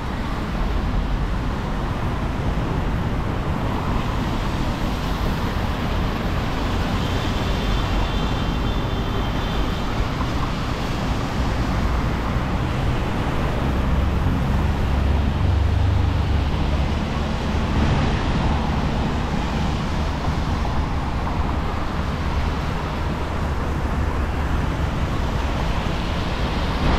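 Road traffic on a city avenue: a steady wash of car tyres and engines going by, with a heavier, deeper rumble swelling as a vehicle passes about halfway through.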